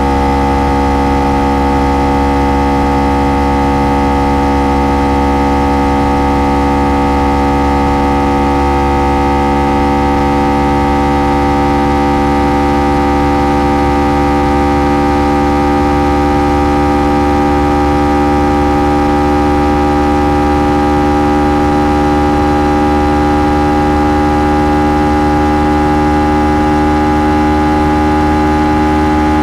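Kawasaki Ninja 300 parallel-twin engine and stock exhaust holding a steady speed, a constant droning note that neither rises nor falls, with a low rush of wind underneath.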